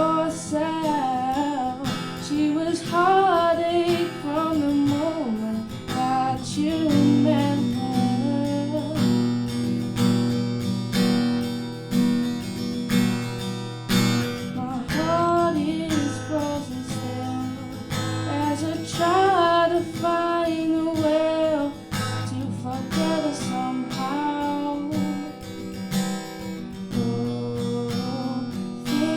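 Acoustic guitar strummed live, with a wavering wordless vocal melody over it.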